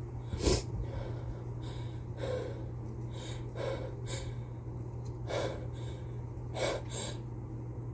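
A person with a cold taking a series of short, sharp sniffing and gasping breaths, about nine in all, the loudest about half a second in: the hitching inhalations of a sneeze building up.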